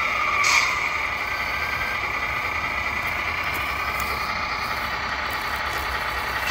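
Radio-controlled model vehicles running: a steady high-pitched electric whine with a mechanical vehicle sound beneath it, and a short hiss with a falling tone about half a second in.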